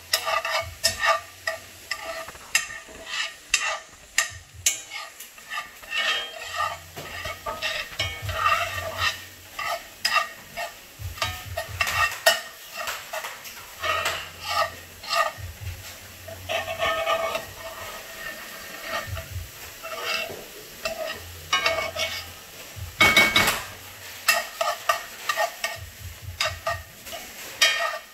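A metal spoon scraping and clinking against a cast-iron skillet as diced bell peppers and onions are stirred and sauteed in butter, with a sizzle underneath. The strokes are irregular, and one is louder near the end.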